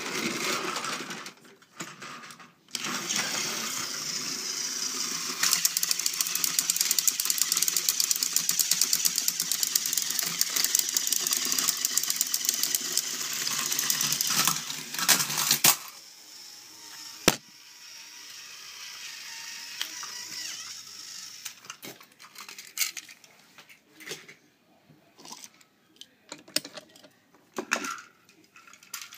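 Two battery-powered toy train engines pushing head to head, their small motors buzzing with a rapid, even gear clatter; the buzzing starts about three seconds in and stops a little past the middle. Faint clicks and handling knocks follow.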